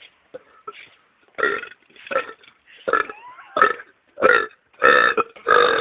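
A man burping: a string of about seven short, loud burps, roughly one every two-thirds of a second, beginning about a second and a half in. The last burp starts near the end and runs on longer.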